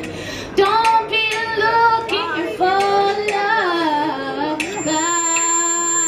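A woman singing a held, gliding vocal line without clear words over a strummed acoustic guitar. A thin, steady high whine comes in near the end.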